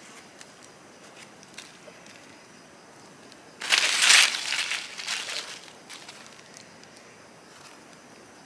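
Dry leaf litter rustling and crackling in one burst of about a second and a half, a few seconds in, as a hand digs into the forest floor. A few faint scattered clicks before and after.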